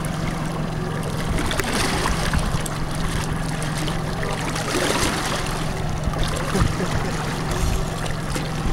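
Boat engine running at idle as a steady low hum, with water sloshing and lapping against the hull.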